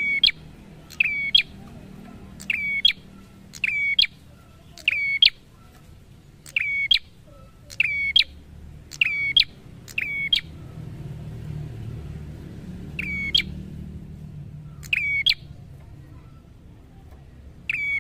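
A caged tailorbird (sold as a 'prenjak') calls loudly and repeatedly. Each call is a short, sharp, rising note, given about once a second, with a few pauses of two to three seconds in the second half.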